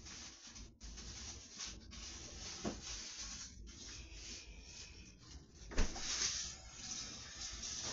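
Rustling and handling noises as items are taken out of a refrigerator, with a single sharp thump about three-quarters of the way through.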